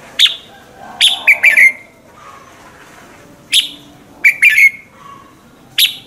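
Red-whiskered bulbul singing: short, loud phrases of sharp whistled notes, each falling in pitch, in five quick bursts a second or so apart.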